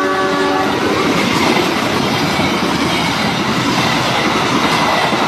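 A train passing close by, its wheels rolling loudly and steadily over the track; the tail of its horn cuts off just after the start.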